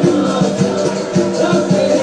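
Capoeira music with a steady percussion beat, about four strikes a second, over held low tones.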